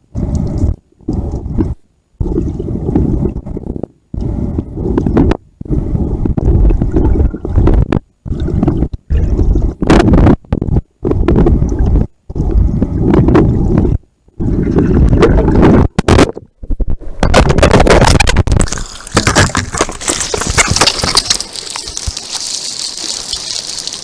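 Water gurgling and sloshing, muffled and low, heard through a camera held underwater, cutting out again and again in short gaps. Near the end it turns into a brighter, steady hiss of splashing water.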